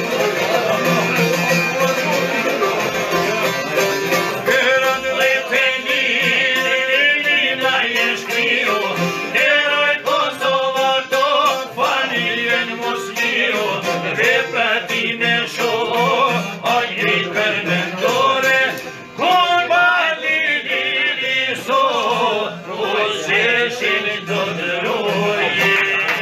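Two long-necked plucked lutes played together, with a man singing over them from about five seconds in.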